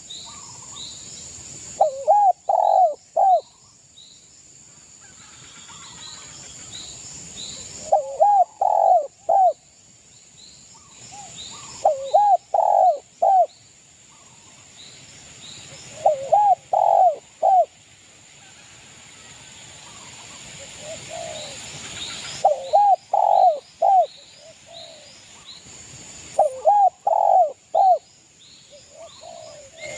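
Spotted dove (derkuku) cooing: six short phrases of three or four quick coos, one every four to six seconds. Smaller birds chirp faintly in the background.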